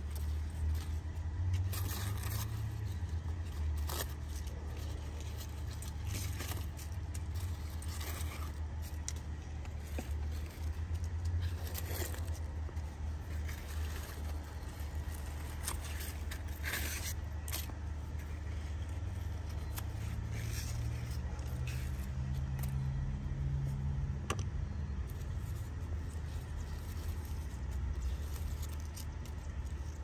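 Hand pruning shears snipping and squash leaves rustling and scraping as lower leaves are cut away, in scattered sharp clicks. A steady low rumble runs underneath, rising a little for a few seconds past the middle.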